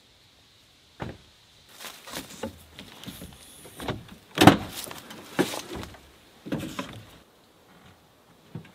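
The camper-shell hatch and tailgate of a Ford F-150 pickup being opened: a latch click about a second in, rustling and handling, then a loud clunk at about four and a half seconds as the tailgate comes down, followed by a few more knocks as things in the truck bed are handled.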